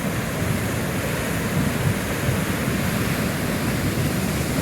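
Floodwater rushing down an arroyo in a flash flood: a steady, unbroken rush of water, heaviest in the low end.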